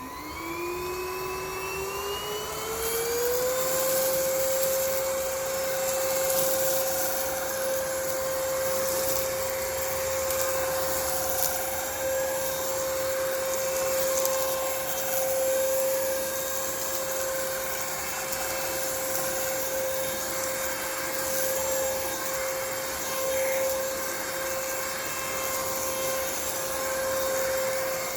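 Kmart Anko cordless stick vacuum cleaner switching on and vacuuming carpet. Its motor whine rises in pitch over the first three or four seconds as it spins up, then runs steadily with a constant airflow hiss.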